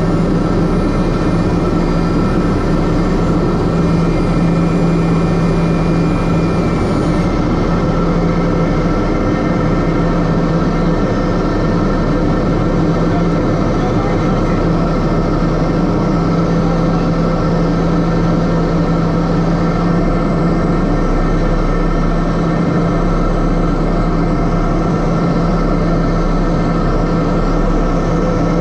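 Steady drone of a Piper M600's single turboprop engine and propeller with rushing air, heard inside the cockpit on final approach.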